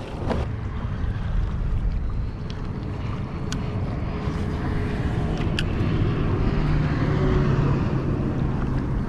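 Kayak under way on open water: wind rumbling on the microphone over water noise. A low steady hum joins about five seconds in, and two sharp clicks are heard in the middle.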